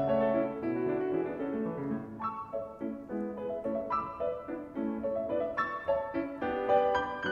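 Piano music playing a steady stream of quick notes.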